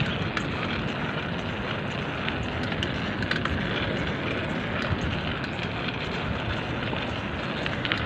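Steady wind rush on a handheld phone microphone while riding a bicycle, with a few faint ticks.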